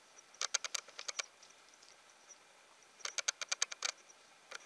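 Two short bursts of rapid clicking taps, about ten clicks a second, one about half a second in and one about three seconds in.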